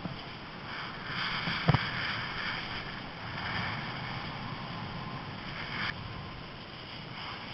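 Wind rushing over an action camera's microphone and the hiss of a snowboard sliding over the snow during a run, louder for most of the stretch. One sharp knock comes a little under two seconds in.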